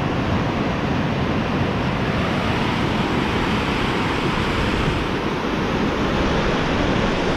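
White-water river rapids rushing steadily over rocks.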